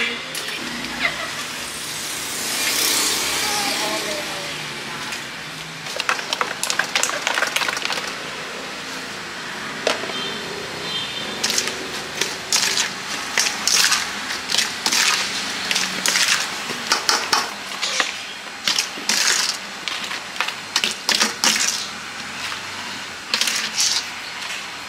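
A metal spoon scraping and clinking against a stainless steel bowl while tossing cut fruit in chili sauce. From about halfway in, it comes as quick irregular runs of scrapes and knocks.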